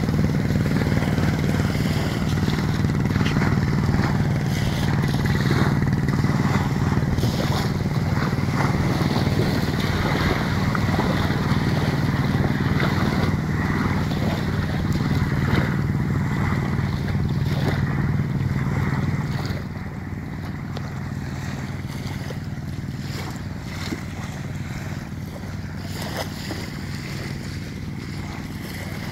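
Steady low hum of a motorboat engine out on the water, which drops in level about two-thirds of the way through.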